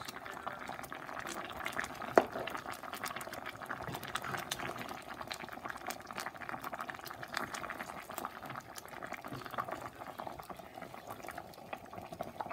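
Thick tomato and coconut-milk stew bubbling at a simmer in a metal pot, with many small popping bubbles and a spoon stirring through the sauce; one sharp knock about two seconds in.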